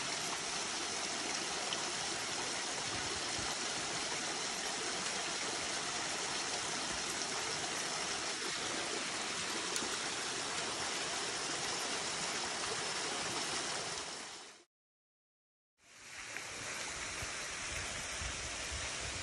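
Waterfall: a steady rushing hiss of water falling over rock. It drops out to silence for about a second three-quarters of the way through, then resumes.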